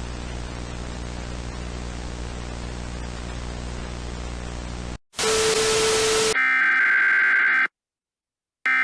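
Steady static hiss with a low hum for about five seconds, then it cuts off. A brief loud burst of static with a steady tone follows, then the screeching digital data burst of an Emergency Alert System SAME header, and after about a second's gap a second burst begins near the end.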